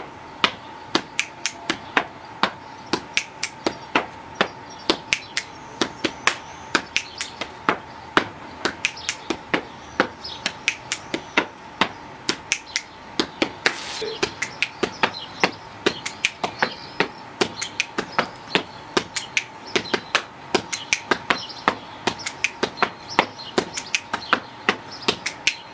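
Body percussion phrase played over and over in a steady repeating rhythm: finger snaps mixed with hand slaps on the chest and thigh. A faint steady tone runs underneath.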